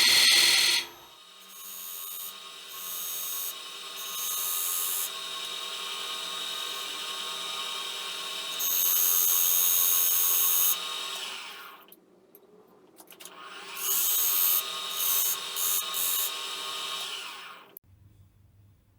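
Wood lathe running while the spinning workpiece is worked, with repeated bursts of scraping noise over the steady motor hum; the lathe stops near the end.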